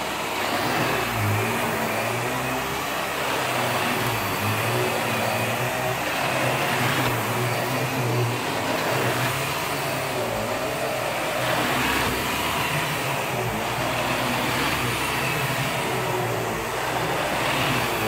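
Upright vacuum cleaner running on carpet as it is pushed back and forth, its steady motor hum and suction hiss rising and falling every few seconds with the strokes.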